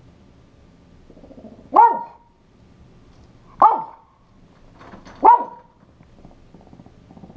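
A Pekingese barking three times at the front door, sharp single alarm barks spaced about a second and a half to two seconds apart, very close to the microphone of a camera strapped on his back.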